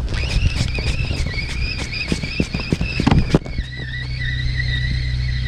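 Spinning reel being cranked to retrieve a surf-casting line, its gears giving a thin whine with rapid fine clicks. About three and a half seconds in, the whine drops a little lower and steadies.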